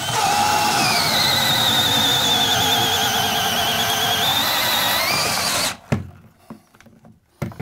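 Cordless drill driving an auger bit up through a wooden wall top plate, the motor running under load with a wavering high whine. It stops abruptly near the end, followed by a couple of faint knocks.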